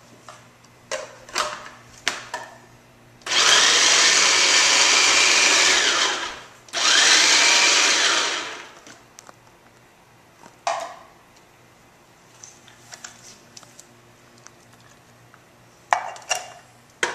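Countertop blender-style food processor chopping fresh tomatoes, run in two bursts of about three and two seconds with a short pause between. Small knocks of the jar being handled come before and after the runs.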